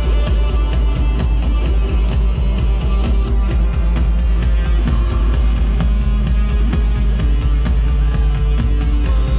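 Loud live rock band heard from the crowd at a club show: a steady drum beat over heavy bass and keyboards.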